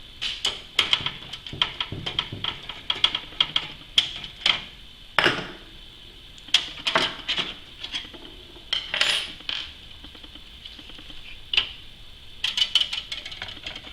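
Irregular small clicks, taps and light metallic clatter from computer parts being handled against the metal of a PC case.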